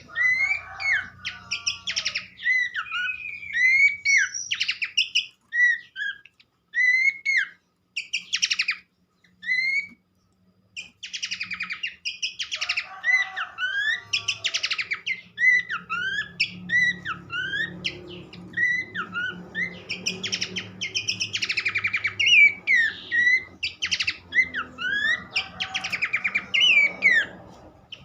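Babbler calls, the pelanduk semak of a bird-training track: dense, overlapping chirps and short slurred whistles, with a brief pause about ten seconds in.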